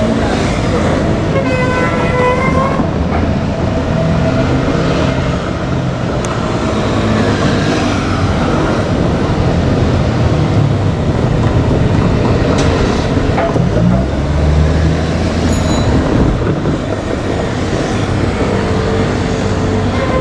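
Steady road traffic, cars and trucks passing, with a brief pitched tone about two seconds in.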